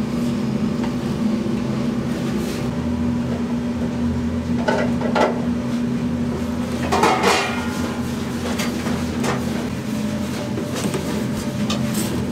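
Kitchen work noise: a steady machine hum with a few clinks and clatters of metal utensils or dishes, the loudest cluster about seven seconds in.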